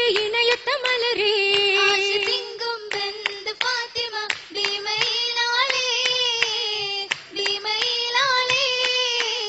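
Group of girls singing an Oppana song (Malayalam Mappila song) on one melody line, with sharp rhythmic hand claps punctuating the singing.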